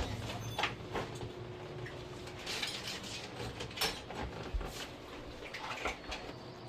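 Irregular light clicks, taps and scrapes, as of hands working on the parts of an air conditioner during servicing, over a faint steady hum.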